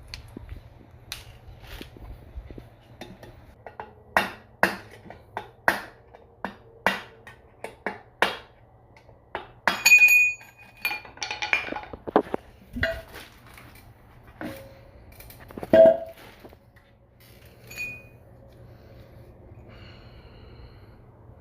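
Metal parts of a manual transmission being handled and fitted during assembly: a run of light taps about twice a second, then several clinks and knocks, a few of them ringing briefly.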